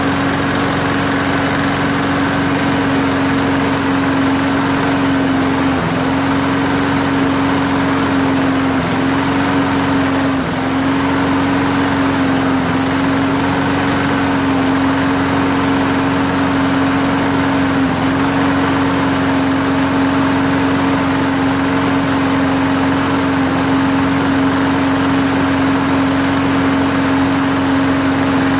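Briggs & Stratton Quantum single-cylinder engine on a Craftsman self-propelled lawn mower running steadily at a constant speed. It is running well after a carburetor cleaning.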